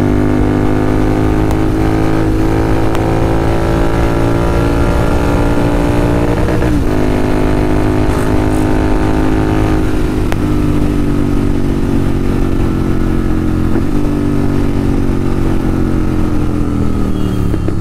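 Motorcycle engine running under way, loud and steady, its note climbing slowly with three brief breaks and then falling away over the last few seconds as it slows.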